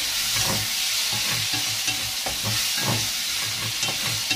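Onions, sweet peppers and tomatoes sizzling in oil in a pot on a gas burner, a steady hiss broken by a few short scrapes of a wooden spoon stirring in the pot.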